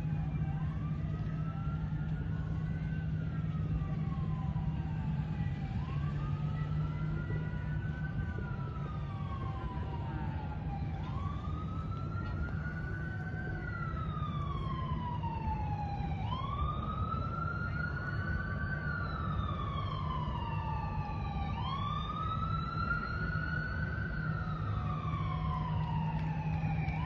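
Emergency vehicle siren in wail mode, its pitch slowly rising and falling about five times, each cycle about five seconds, louder in the second half, over a steady low hum.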